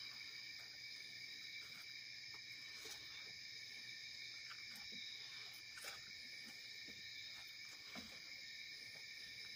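Faint, steady chorus of night insects: a continuous high-pitched trill that does not let up, with a few soft knocks about six and eight seconds in.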